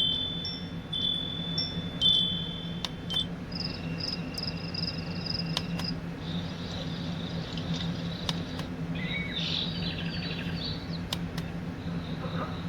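Recorded nature sounds played through an alarm clock's small speaker: short high chiming and chirping notes, like birdsong, repeating over a steady low hum.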